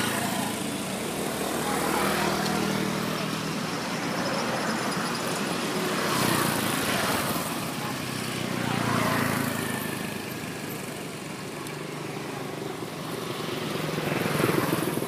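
Motor vehicles passing by, their engine and road noise swelling and fading several times.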